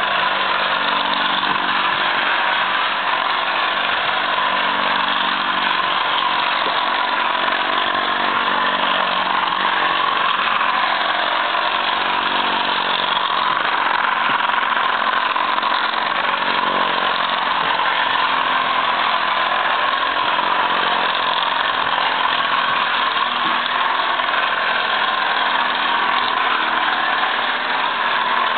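D.R. Mercer-type traction engine running steadily as it moves along, a continuous engine note with a dense, noisy layer over it.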